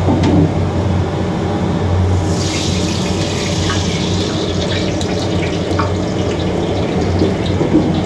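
Water running with a rushing hiss that starts about two seconds in, with a few light clicks, over a low steady hum.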